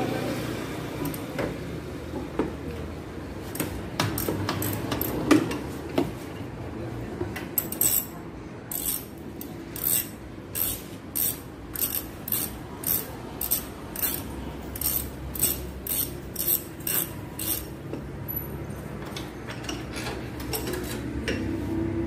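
Hand wrench working small suspension bolts loose under a car, metal on metal. Scattered clicks and knocks come first, then about ten seconds of short clicking strokes, roughly two a second.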